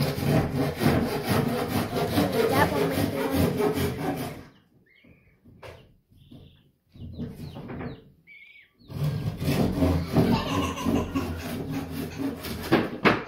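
Loud, rough rubbing and scraping in two long stretches, with a quieter gap of a few seconds between them. A few faint chick peeps are heard in the gap.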